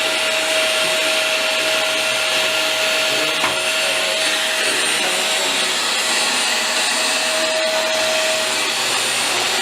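Household vacuum cleaner running steadily, a loud even rush with a steady whine that drops out briefly near the end.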